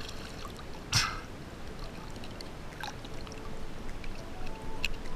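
Water trickling and lapping around a camera held at the water's surface, with one splash about a second in and a few light ticks.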